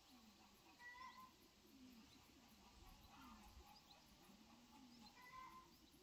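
Near silence with faint animal calls: two short calls, about a second in and again near the end, over faint rising-and-falling low sounds.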